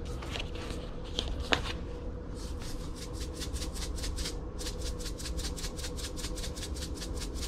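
Wire whisk stirring thick cheese grits in a small saucepan, a quick even run of short raspy strokes, about six a second, starting about two seconds in, while salt is being added.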